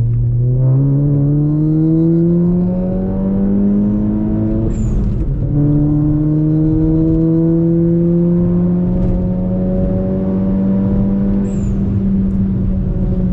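Turbocharged VW Golf's engine heard from inside the car, pulling up through the revs in one gear. About five seconds in the pitch drops at an upshift with a brief high chirp. In the next gear it climbs again more slowly and then holds steady.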